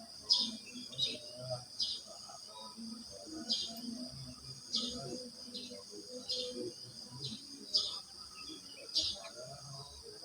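Crickets trilling steadily and high, while a bird repeats short, sharp chirps every second or so, over a softer mix of lower calls.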